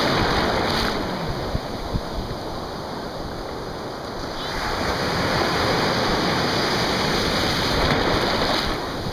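Ocean surf breaking and whitewater churning around the legs of people standing in it. It is a steady rush of water noise that eases for a few seconds after the start and swells again from about halfway.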